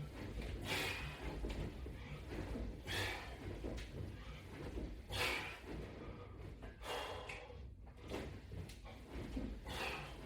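A person doing strap-assisted sit-ups: a noisy whoosh about every two seconds, one per repetition, over a steady low rumble.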